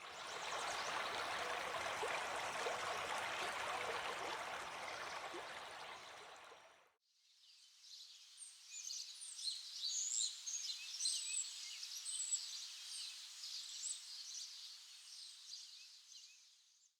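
A steady rush of running water that fades out after about seven seconds, followed by scattered high bird chirps.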